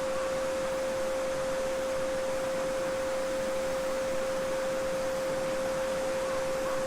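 Steady 528 Hz pure sine tone, the solfeggio frequency, held unbroken over the even rushing of a babbling brook.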